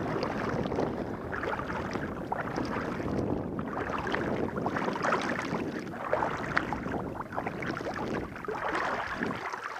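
Shallow river water sloshing and splashing steadily, rising and falling unevenly, with small droplet-like ticks.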